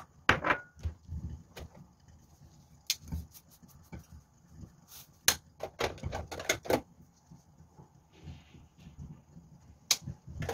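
Scattered sharp clicks and taps from salt and pepper containers being handled while raw sliced chicken is seasoned, with a quick run of clicks about six seconds in.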